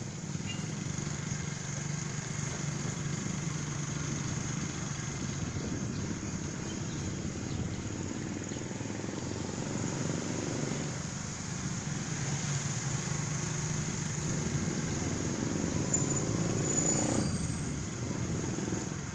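Motor scooter engine running steadily under way, heard from the rider's seat, with road and wind noise. A brief high-pitched squeak comes near the end, where the sound is loudest.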